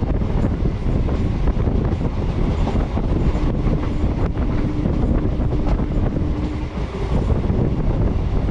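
Kolkata suburban electric multiple unit (EMU) train running at speed, heard from its open doorway: a steady rumble and rattle of wheels on track with occasional clicks. A faint steady tone sounds from about three to seven seconds in.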